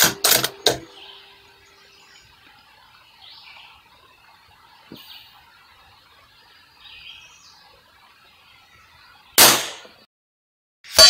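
A single shot from a .22 LR rimfire precision rifle about nine and a half seconds in, a sharp crack that dies away within half a second, after faint bird chirps. Right at the end a loud metallic clang begins and keeps ringing.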